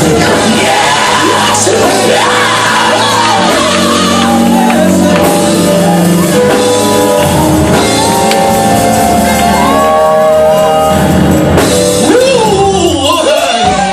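Loud gospel praise music in a church, with a voice shouting and singing over sustained chords and a bass line.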